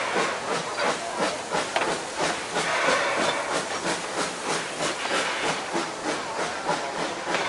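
Puffing Billy narrow-gauge steam train under way: steam hissing over a rapid, even beat of chuffs and wheel clatter.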